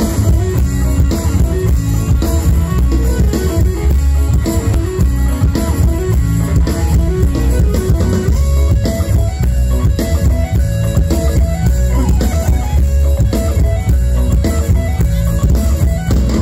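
Live Isan mor lam band music over a loud PA system: drum kit, bass and electric guitar playing a steady-beat dance number.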